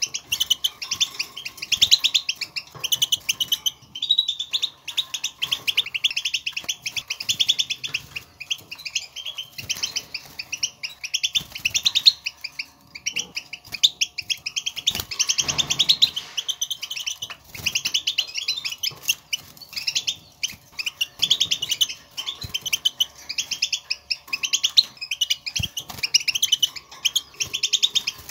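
European goldfinches calling and twittering: continuous rapid runs of short, high chirps. These are the wild goldfinch's field calls, which the birds use to call to one another and which set a caged goldfinch singing.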